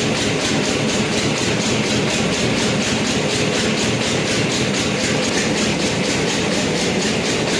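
Machinery in a tyre repair shop running steadily with a fast, even clatter.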